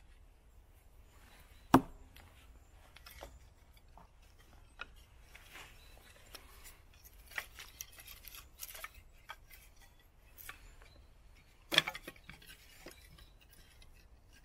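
Small bushcraft knife working wood: irregular scraping and cutting clicks as the blade shaves splinters, with two sharp knocks, about two seconds in and near the end.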